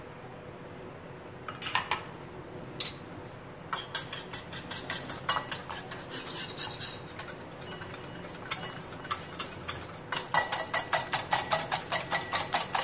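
Wire whisk beating egg, milk, sugar and cocoa powder in a glass bowl, its wires clicking rapidly against the glass. A few glass clinks come before the whisking starts, about four seconds in. The beating gets faster and louder about ten seconds in.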